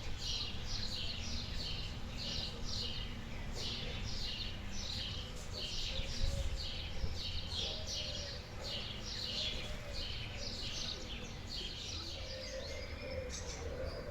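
A small bird chirping over and over, about two short high chirps a second, with a steady low rumble underneath.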